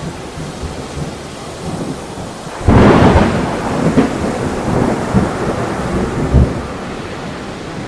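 A thunderclap breaks about a third of the way in and rolls on for about four seconds with several further cracks, then eases. Underneath is a steady wash of storm rain.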